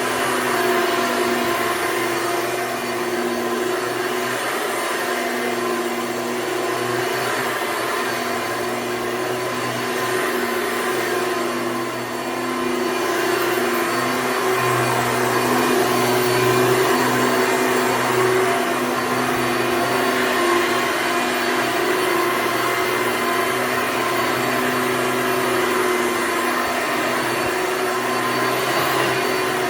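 1993 Hoover Elite upright vacuum cleaner running steadily: a continuous motor hum over the rush of airflow.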